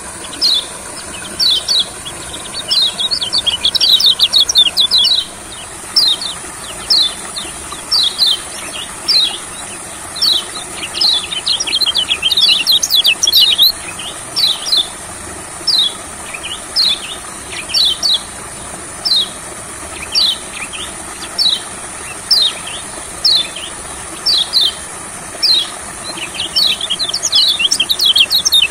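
Yellow white-eye (kecial kuning) calling: short, sharp descending chip notes repeated about once or twice a second, broken three times by bursts of fast twittering song. A steady high hiss runs underneath.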